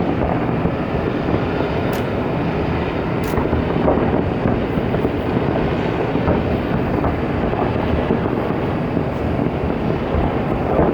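Fireworks barrage over the water, heard as a continuous, dense rumble of distant bursts, with a couple of sharp cracks about two and three seconds in.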